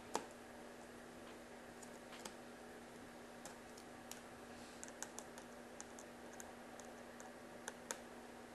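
Faint, scattered clicks and ticks of small plastic drone parts and screws being handled and fitted, with one sharper click just after the start, over a faint steady hum.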